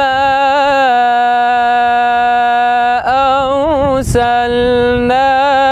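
A man's voice reciting the Quran in the ornamented mujawwad style, in maqam Kurd. He holds a long, steady note on the drawn-out vowel of "fa-mā", with a short ornamental turn about three seconds in and a brief break about four seconds in before another held note.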